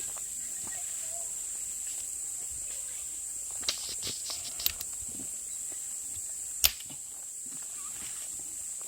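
Steady high-pitched insect chirring, with a few sharp clicks a little past the middle and one louder knock about two-thirds of the way through.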